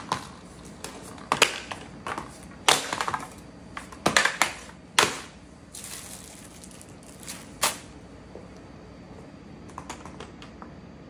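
Spray-paint cans, a roll of painter's tape and a stencil being set down on cardboard over a concrete floor: a series of sharp knocks and clatters, with several in quick succession about three to five seconds in and a single one near eight seconds.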